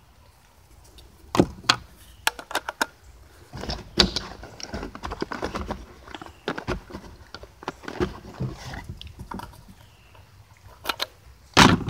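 Handling of a 12-gauge magazine-fed shotgun: a run of sharp clicks and knocks, with the loudest knocks about a second in and near the end.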